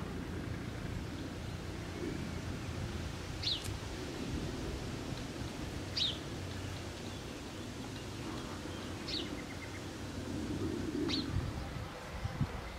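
A small bird chirping: four short, high chirps a few seconds apart, over a steady low outdoor background.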